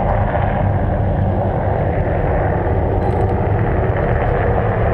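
Engines of off-road race buggies running steadily, a continuous low engine noise with no break.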